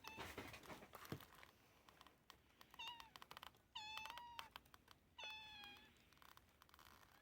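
Cat meowing three times: a short meow about three seconds in, then two longer, drawn-out meows. Light clicks and rustling come in the first second or so.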